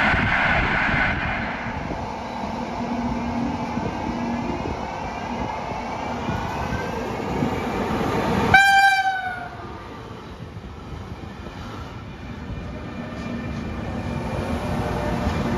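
A train running through a station, with one short horn blast from the locomotive about eight and a half seconds in that drops slightly in pitch as it ends. The rail noise is loudest at the start, eases after the horn and builds again near the end.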